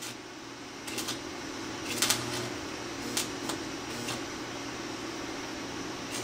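Arc of a small 110-volt stick welder crackling and hissing steadily on a thin car exhaust pipe, with a few sharp pops, over a steady low hum.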